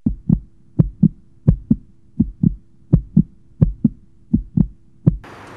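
Heartbeat sound effect: paired low thumps, lub-dub, a bit under one and a half beats a second, stopping abruptly near the end.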